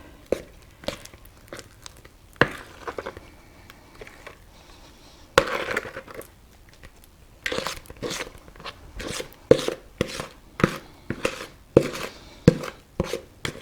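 Spatula scraping thick cake batter out of a mixing bowl into a baking pan, with short scrapes and knocks against the bowl. They are sparse at first, then come in steady strokes about once a second over the last six seconds.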